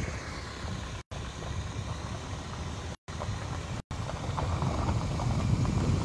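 Wind buffeting a phone microphone outdoors: a rough, gusty low rumble with steady hiss above it. The audio cuts out completely three times for an instant, about one, three and four seconds in, the dropouts of a live stream.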